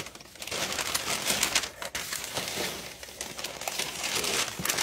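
Paper rustling and crinkling as hands dig through packing paper in a cardboard shipping box, a dense run of small crackles.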